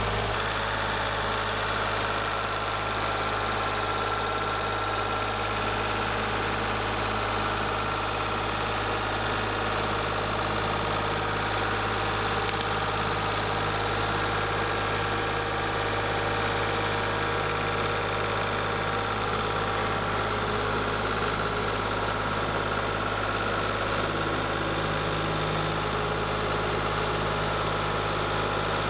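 An engine running steadily at idle, an even hum that does not change.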